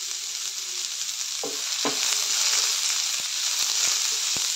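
Sliced onions frying in hot oil in a non-stick kadai: a steady sizzle, with a few sharp taps and scrapes of a wooden spatula stirring them, most clearly about a second and a half and two seconds in.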